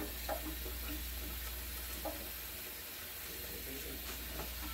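Pot of spare ribs cooking on the stove, sizzling steadily over a low hum, with a few faint clicks.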